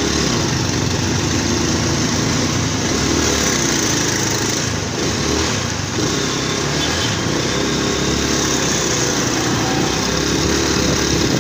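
A small motorcycle's engine running while being ridden in traffic, its note rising and falling with the throttle, under a steady rush of road and wind noise.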